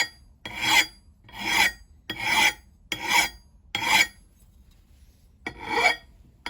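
A steel hand file rasping across the edge of an axe head in even push strokes, about one every 0.8 seconds. Six strokes come in a steady rhythm, then a pause of about a second and a half before one more.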